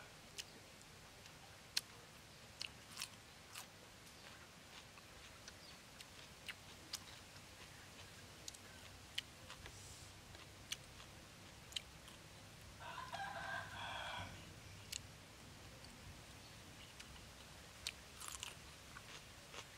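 Quiet, close crunchy chewing, with sharp crunches every second or so and a crisp bite into a raw cucumber near the end. A rooster crows once in the background about thirteen seconds in.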